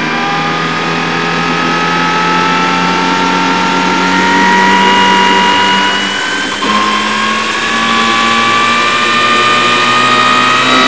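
Large-scale radio-controlled OH-6 Little Bird model helicopter spooling up on the ground: a loud motor whine rising slowly in pitch as the rotor speeds up, with a short dip about six and a half seconds in.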